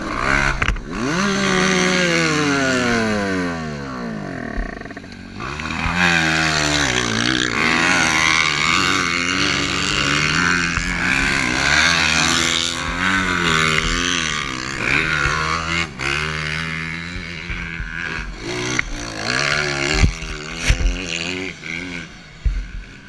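Two-stroke motocross bike engine at race pace. About a second in the pitch drops steeply as the throttle is shut, then the revs climb and waver up and down as the throttle is worked through the corners. A few thuds come near the end.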